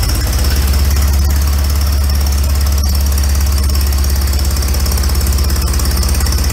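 Allis-Chalmers WD45's four-cylinder engine running at a steady idle while it warms up, with the spark plug wires in the wrong firing order, so it is not running well.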